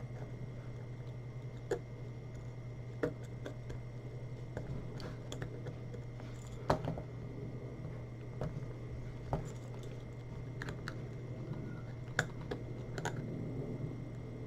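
A knife working at the earcup of a pair of Bowers & Wilkins P5 headphones: a few sharp, irregularly spaced clicks and small scrapes of metal on the earcup, over a steady low hum.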